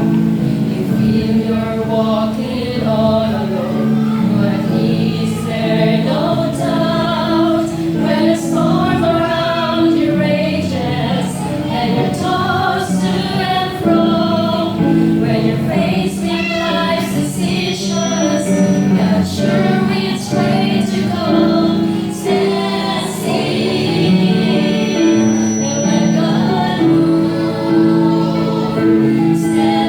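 A choir of mostly women's voices singing a gospel song, with sustained notes that change continuously.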